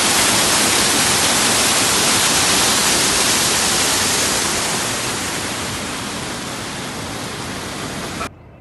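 Waterfall, a loud steady rush of falling water that grows fainter after about four seconds and cuts off suddenly near the end.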